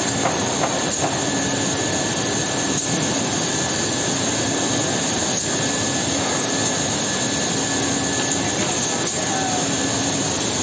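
Holztek HT-6SD-2H six-sided CNC drilling machine with two drill heads running as it works a plywood panel: a loud, steady rushing noise with a low hum that comes and goes.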